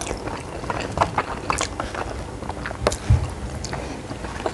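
Close-up eating sounds: a person chewing food, with irregular wet clicks and crackles from the mouth. A soft low bump comes about three seconds in.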